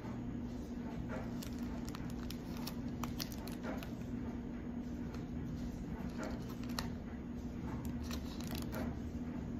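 A small clear plastic zip-top bag crinkling and rustling as gloved fingers pick small beads out of it, with scattered light clicks, over a steady low hum.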